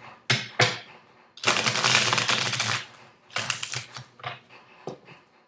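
Tarot cards being handled and shuffled: a few sharp card snaps, then a rapid fluttering run of card clicks lasting over a second, about a second and a half in, and a shorter run a little later.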